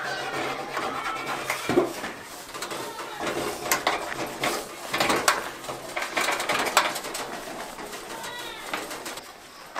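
A rag and a thin wooden stick scrubbing, scraping and tapping inside the steel case of a two-burner liquid-fuel camp stove, in short irregular clicks and rubs. Birds call in the background, with a few arching calls near the end.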